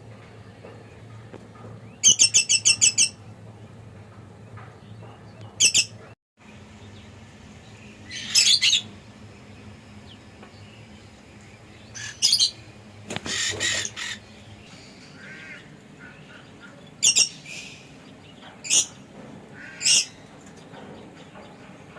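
Lovebirds giving shrill chirps and squawks in short bursts. There is a rapid run of about eight chirps about two seconds in, then single calls and short runs every few seconds, over a faint low hum.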